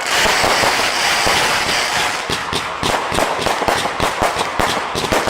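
Fireworks going off: a sudden dense crackling burst at the start, then a rapid string of sharp bangs.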